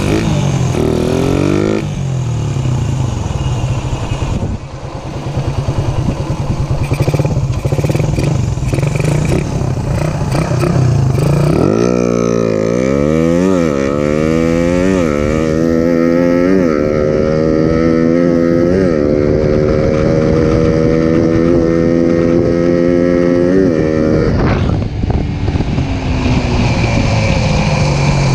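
Suzuki Raider 150 single-cylinder four-stroke engine, running on a Koso EVO 30mm flat-slide carburettor. It runs at low speed, then revs up through the gears from about halfway: each rising pull is cut short by a drop in pitch at a shift, and it holds a higher steady pitch. Near the end the throttle closes to engine braking, without backfire, a sign of a well-tuned carburettor.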